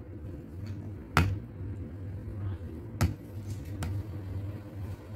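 Metal spoon stirring buko pandan dessert in a ceramic bowl, clinking sharply against the bowl twice about two seconds apart, with a softer clink after, over a low steady hum.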